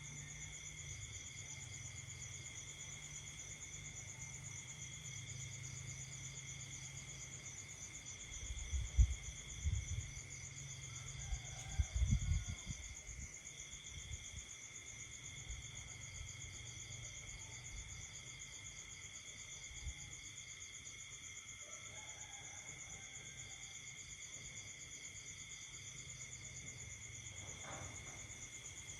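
Night insect chorus of crickets: several steady, high-pitched trills layered at different pitches, some pulsing rapidly. Twice, about a third of the way in, low rumbling thumps briefly rise above the chorus.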